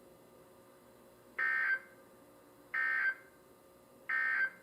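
Three Emergency Alert System end-of-message data bursts on NOAA Weather Radio, about a second and a half apart: short two-tone digital screeches, each under half a second, signalling the end of the alert message.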